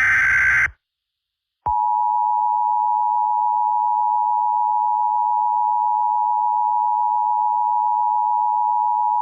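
Emergency Alert System tones: the end of a buzzy digital SAME header data burst, a brief silence, then the EAS two-tone attention signal, two steady pitches near 853 and 960 Hz held together, starting just under two seconds in.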